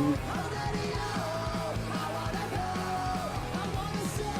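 Background music laid over the video: a rock song with guitar and a voice singing or shouting.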